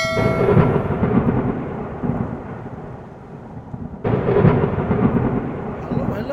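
Thunder rumbling over rain: a rolling rumble that fades, then a sudden fresh crack about four seconds in that rolls on. A bright ringing chime dies away in the first half second.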